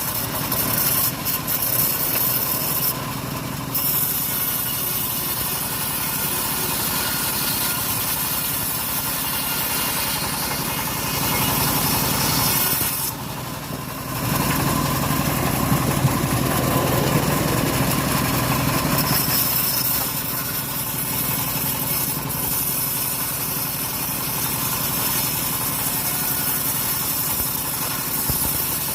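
Engine-driven sawmill running steadily, its blade cutting through a teak log. The sound dips briefly about thirteen seconds in, then comes back heavier.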